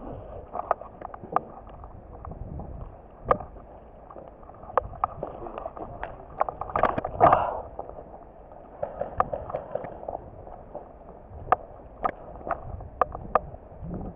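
Footsteps on dry grass and gravel with sharp clicks and knocks of gear, over a steady rustling noise; a quick run of small ticks comes about two-thirds of the way through.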